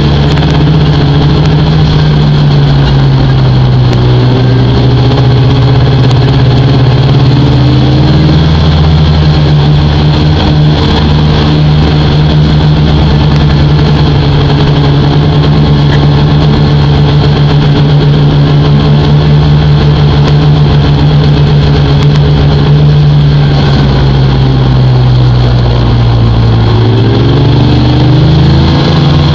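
Snowmobile engine running loud and close at trail speed, its pitch easing down and back up a couple of times with the throttle and climbing near the end.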